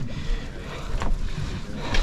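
Wind on the microphone over water moving against a boat, with two sharp knocks, one about a second in and one near the end.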